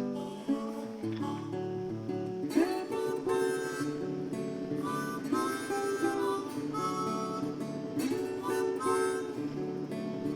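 Background music: acoustic guitar with harmonica playing an upbeat folk tune.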